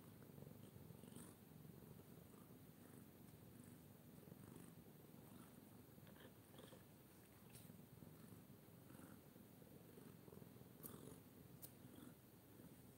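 Faint, steady purring of a domestic tabby cat, with a few faint clicks.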